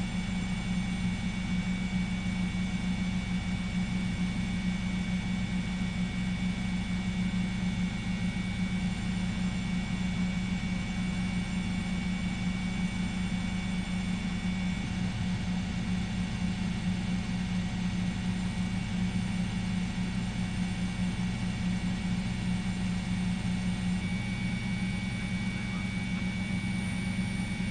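Steady drone of a helicopter's engine and rotors, heard from inside the cabin: an even low hum with a steady high whine above it.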